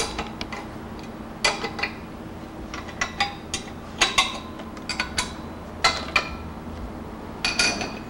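Irregular sharp metallic clinks and knocks with short ringing, about ten in all, from a wrench and steel fixture clamps as a Harley-Davidson Shovelhead cylinder head is unclamped from a milling-machine fixture. A low steady hum runs underneath.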